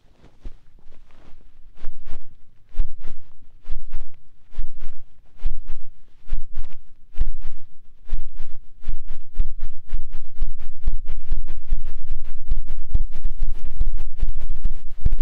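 Fingers beating rapidly over a binaural microphone's ear in the ASMR 'helicopter' ear-cleaning trigger: deep thumps that start slow and uneven and speed up into a fast, continuous flutter, like a helicopter rotor spinning up.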